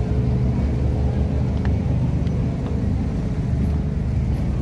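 Steady low rumble with a faint steady hum above it.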